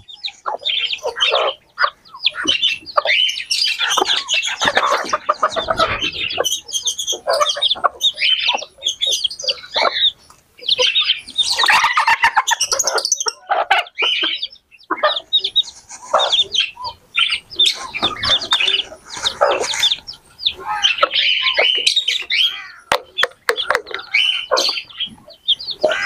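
A flock of backyard chickens clucking, with high chirps mixed in; the calls overlap irregularly and never let up.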